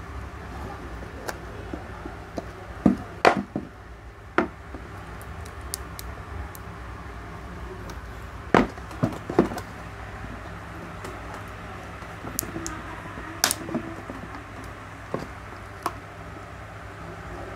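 Scattered sharp plastic clicks and knocks as a Honda Vario motorcycle tail light assembly is slowly pried apart by hand at its glued seam. A steady low hum runs underneath.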